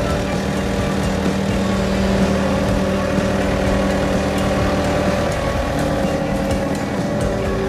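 A large engine running steadily, with a humming tone that drops out about five seconds in.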